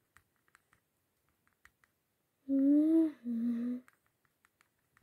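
A voice humming two notes, "mm-hmm", a slightly rising-then-falling note followed by a lower steady one, lasting about a second and a half halfway through. Faint scattered clicks sound around it.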